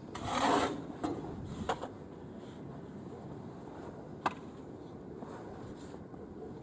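Snow shovel scraping through snow in one stroke at the start, followed by a few sharp knocks of the shovel.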